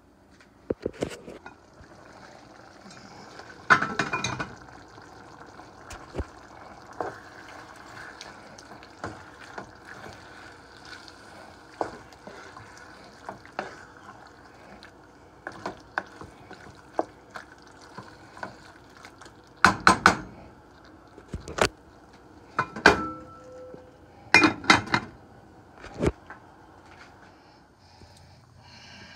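Sauce cooking in a frying pan with a steady hiss, while a wooden spoon stirs it, knocking and scraping against the pan, and cookware clatters in several short bursts, the loudest about four seconds in and again around twenty to twenty-five seconds in.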